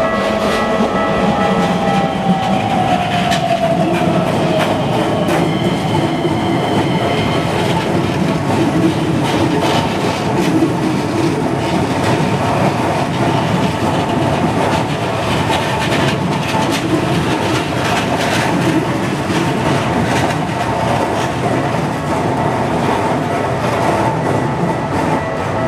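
Keisei 3100 series electric train passing over a level crossing: a steady rumble of wheels on rail with rapid clicks over the rail joints. The crossing's warning bell rings behind it.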